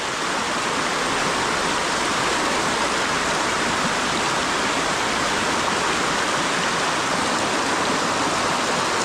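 Stream water rushing in a steady, even flow.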